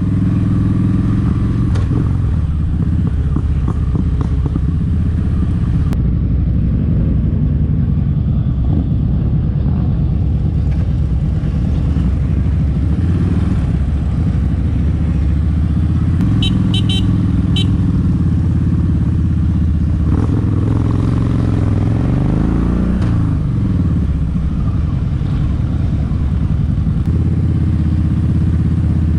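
Motorcycle engine running steadily under way. Its pitch drops and climbs again about twenty-two seconds in. A few quick faint ticks come about seventeen seconds in.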